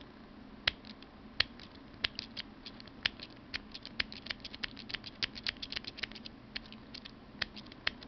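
Lock pick and tension tool clicking and scraping in the metal plug cylinder of a Master Lock TSA combination luggage lock's override keyway. Small sharp metallic clicks come a few at a time at first, fast and dense around the middle, then thin out again.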